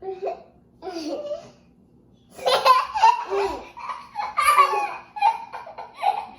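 Young children laughing and squealing in high-pitched bursts, louder and more continuous from about two seconds in.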